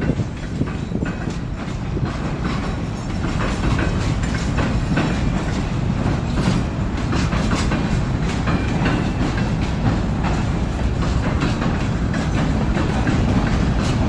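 A train running steadily, a low rumble with the wheels clicking irregularly over the rail joints.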